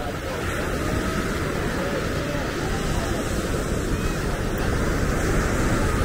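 Steady rush of ocean surf with wind buffeting the microphone, and faint voices of passers-by.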